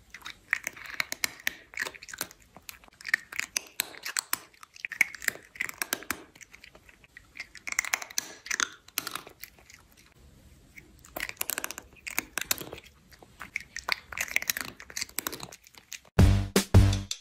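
A cat chewing and nibbling on a person's finger: bursts of wet, clicky, crunching mouth sounds, coming and going every second or two. Music with a heavy beat starts about a second before the end.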